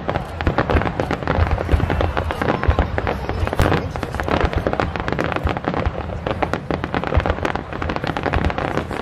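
Aerial fireworks display: shells bursting one after another without pause, deep booms under a dense run of rapid pops and cracks from crackling stars.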